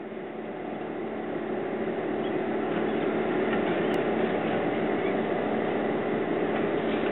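Steady mechanical drone of engines or machinery, with a few steady low tones in it, fading in over the first few seconds and then holding level.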